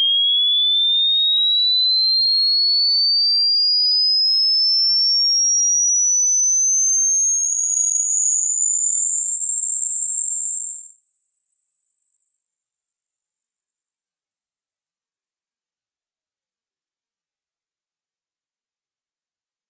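Hearing-test sine tone sweeping upward in pitch, one pure whistle that climbs steadily from high to very high, rising in small steps over the second half. It is the kind of sweep used to judge hearing age: the older the listener, the lower the point where the tone fades out of hearing.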